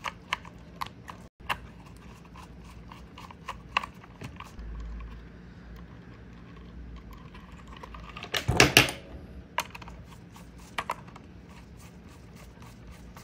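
Small clicks and scrapes of a screwdriver turning terminal screws and thin thermocouple wires being handled on a plastic controller's screw terminal block, with a louder burst of handling noise about two-thirds of the way in.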